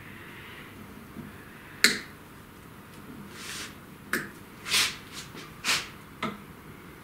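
Hands handling cables on a CNC router's gantry: a few sharp clicks and taps spaced irregularly over several seconds, with short soft hissing puffs in between.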